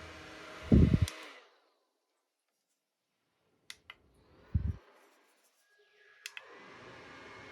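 Small electric fan running, then winding down to silence about a second and a half in after a couple of loud handling knocks. A few button clicks and another knock follow, and near the end the fan starts up again, its motor pitch rising as it speeds up.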